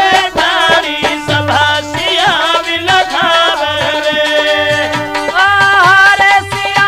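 Instrumental interlude of a Holi folk song: a gliding lead melody over steady dholak drumming.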